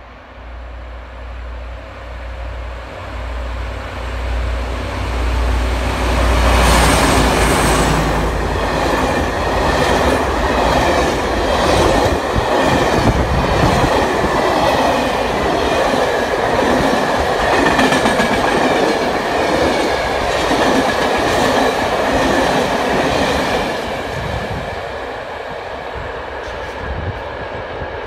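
Freight train of empty wood wagons hauled by a VR Class Dv12 diesel-hydraulic locomotive, approaching and passing. The diesel's low rumble grows over the first few seconds and the locomotive goes by about six seconds in. The empty wagons then rattle past with a steady clickety-clack of wheels over rail joints and a thin steady whine, and the sound fades over the last few seconds.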